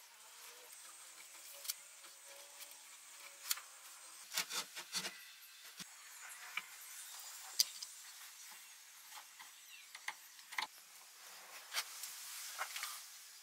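Faint scattered clicks and light taps, with a quick cluster of several near the middle, over a low steady hiss.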